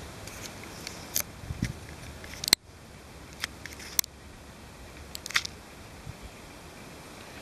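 Handling noise from a handheld camcorder: scattered sharp clicks and a soft low thump over a steady faint hiss, the hiss dropping suddenly after one loud click a little over two seconds in.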